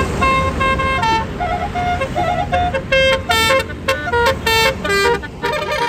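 A bus's Basuri telolet horn playing a quick tune of short, stepping notes over a low rumble.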